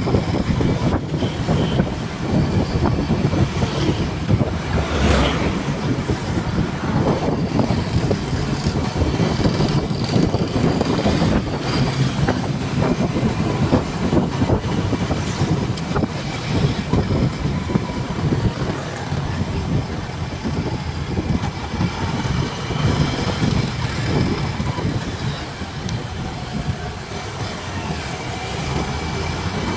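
Riding noise from a camera mounted on a moving motorcycle: wind buffeting the microphone over the drone of the engine and tyres, steady throughout.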